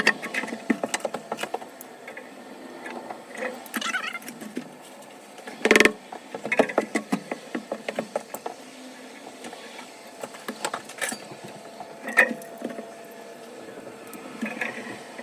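Irregular clicks, knocks and scrapes of hand tools and metal parts being handled during shower valve replacement, with a louder clatter about six seconds in and another about twelve seconds in.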